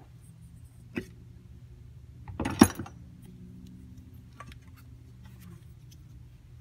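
Metal handling clunks as a turbocharger's cast-aluminium compressor housing is pulled off the cartridge: a sharp click about a second in, then a cluster of clunks near the middle, the loudest, with a low ring lingering after it and a few faint ticks later.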